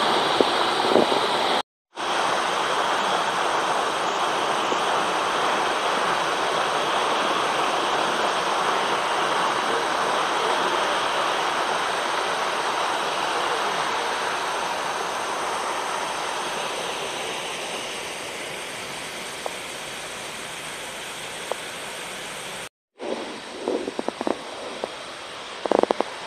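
Small waterfall spilling over a stone weir into a pool: a steady rushing of water that fades over the second half. It cuts out briefly twice, and a few soft knocks come near the end.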